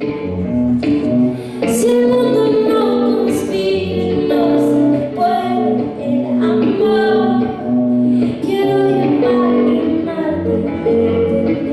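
A woman singing a song with a live band backing her.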